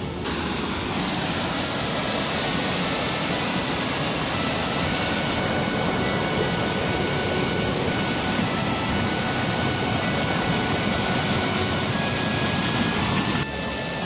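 Waterfall rushing over rocks: a steady, loud rush of white water that starts abruptly and cuts off sharply near the end.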